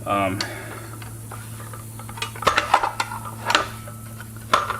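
Metal tool clinking and tapping against a Ryobi circular saw as its built-in blade wrench is handled: scattered sharp clicks, most of them between about two and a half and three and a half seconds in, over a steady low hum.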